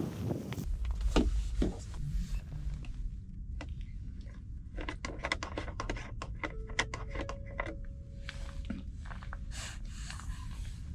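Hard plastic clicking and scraping as a water jerrycan's screw cap and spigot tap are handled and twisted, a rapid series of sharp clicks, over a low rumble and after a thump at the start.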